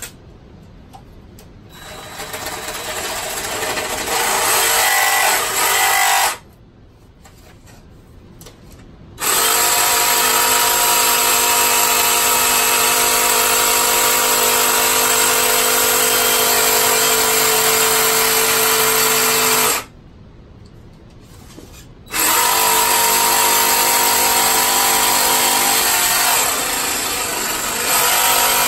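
Jigsaw cutting through white plastic pipe. It runs in three spells: it speeds up gradually over the first few seconds, then runs at a steady whine. It stops twice for two or three seconds each time and starts again.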